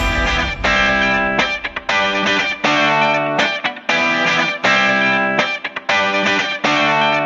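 Background music: guitar chords, each held about a second with short gaps between them.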